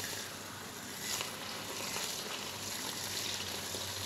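Crappie fillets sizzling in hot tallow in a cast-iron skillet as more fillets are laid in: a steady frying hiss with fine crackle, with a brief rise about a second in.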